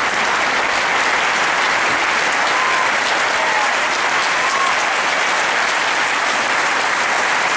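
Large crowd applauding steadily, welcoming the speakers onto the stage.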